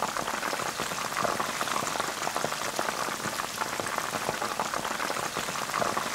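Chicken wings deep-frying in hot oil in a pan: a steady, dense sizzle and crackle of bubbling oil.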